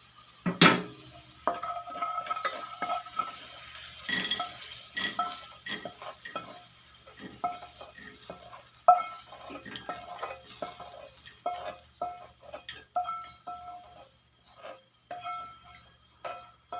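A metal spatula repeatedly scraping and knocking against a wok while stirring and scooping fried peanuts out of the oil, with a faint sizzle. The pan rings briefly at a couple of steady pitches after each knock, in irregular strokes, with the loudest just after the start and about nine seconds in.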